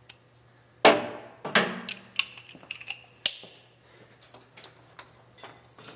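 Hard metal clinks and knocks from hand tools and loose engine parts being handled, the sharpest about a second in and a few more over the next two seconds, then lighter ticks, over a faint steady hum.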